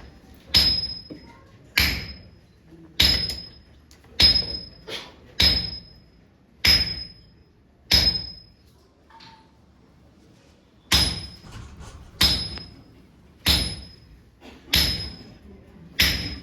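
Hammers striking hot steel on an anvil during the folding of katana steel, in a steady rhythm of about one blow every 1.2 seconds, each blow with a short, high metallic ring. The blows stop for about three seconds midway, then resume at the same pace.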